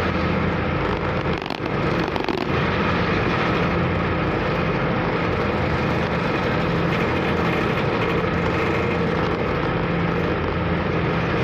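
The car ferry KMP Sumut 2's engine running steadily, a low even drone under a rushing noise, with a brief dip about a second and a half in.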